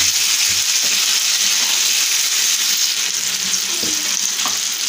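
Oil sizzling steadily around a whole marinated fish shallow-frying uncovered in a nonstick pan, with a few faint crackles.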